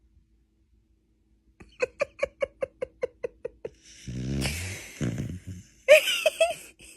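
A sleeping beagle snoring: a low, rattling snore lasting about a second and a half, starting about four seconds in. Before it comes a quick run of about ten short, high sounds, about five a second, and a few more short sounds follow near the end.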